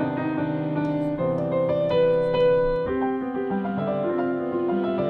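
Piano and string quartet playing a classical-style chamber piece: quick repeated notes for about the first three seconds, then slower held notes.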